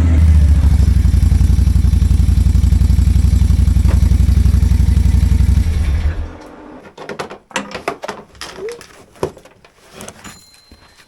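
A small engine idling steadily, then shut off about six seconds in, followed by scattered clicks and clatter.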